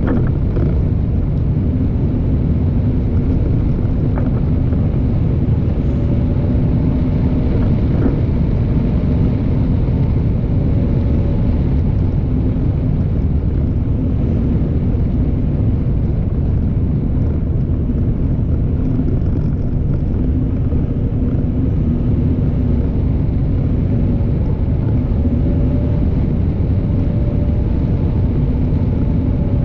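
A car driving: a steady rumble of road and engine noise, with a faint wavering hum.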